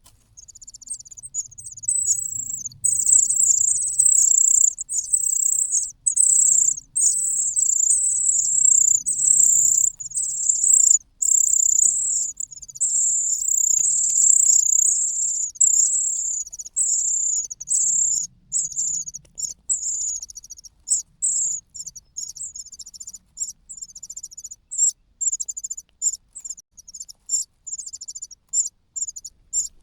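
Cuckoo chick begging for food: rapid, high-pitched squeaking calls in long unbroken runs, breaking up into shorter, separate calls after about twenty seconds. The calls are the sign of a hungry chick.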